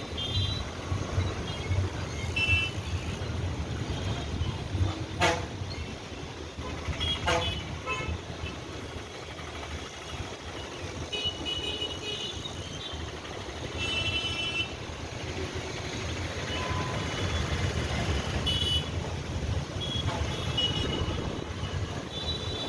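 Busy road traffic: a steady rumble of passing vehicles, with short horn toots sounding again and again. Two sharp clicks come about five and seven seconds in.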